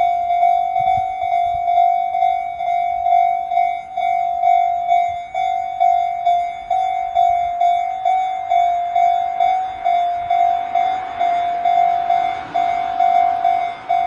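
Japanese railway level crossing warning bell ringing in a steady single-tone clang, about one and a half strikes a second, as the crossing signals a train. From about ten seconds in, the rush of an approaching train grows beneath it.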